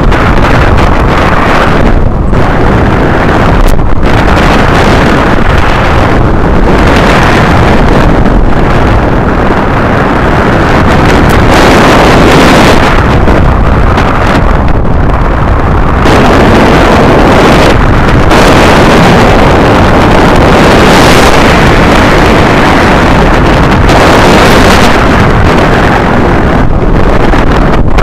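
Loud wind rushing over a camera microphone mounted on a hang glider's control-frame upright in flight, a rumbling rush that swells and eases every few seconds with the airflow.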